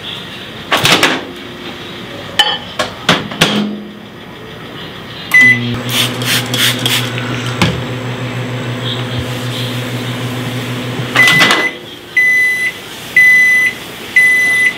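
Microwave oven melting butter in a small glass bowl: a few knocks and clacks, a beep as it starts, then a steady hum for about six seconds. It stops with a clunk and a beep, followed by three long end-of-cycle beeps about a second apart.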